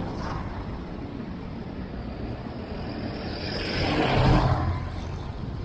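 Wind rumbling on the microphone of a moving bicycle, with street traffic behind it. A jeepney passes close alongside, and its engine swells to the loudest point about four seconds in, then fades.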